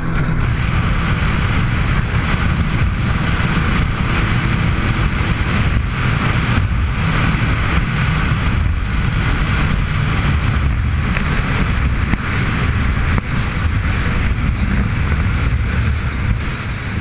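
The twin MerCruiser 350 Magnum V8 inboard engines of a 1988 Baja Force 265 speedboat running steadily at high speed, a deep engine drone under a constant rush of wind and water at around 60 mph.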